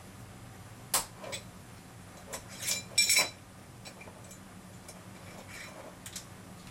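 Glass spice jars and lids clinking and tapping on a kitchen counter as they are handled: a few scattered clicks, the loudest a ringing glassy clink about three seconds in, over a faint low hum.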